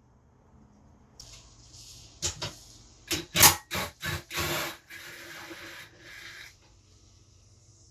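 Workshop disassembly noises: a steady hiss starts about a second in, with several loud, short rubbing or scraping strokes of tools and metal parts in the middle.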